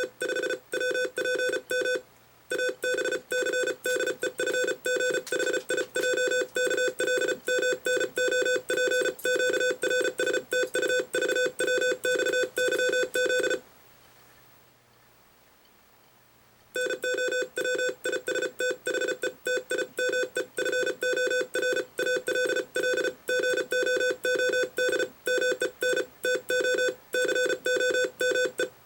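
International Morse code sent as a single tone keyed on and off very fast, at 35 words per minute, with a pause of about three seconds about halfway through.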